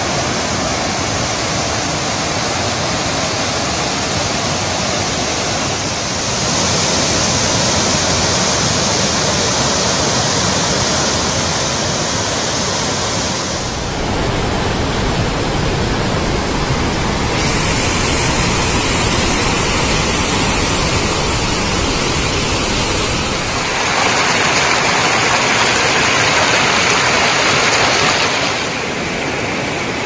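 Floodwater of the Bogatha waterfall and its river rushing steadily, swollen by heavy rain. The sound of the water shifts abruptly in tone every few seconds.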